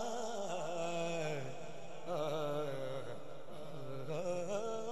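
A young man's voice singing a naat, a devotional song in praise of the Prophet, with long held notes that waver and glide in melismatic ornament. No instruments or beat are heard with it.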